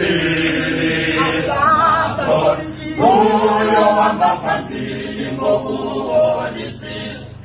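Male choir singing a cappella in harmony. A loud new phrase comes in about three seconds in.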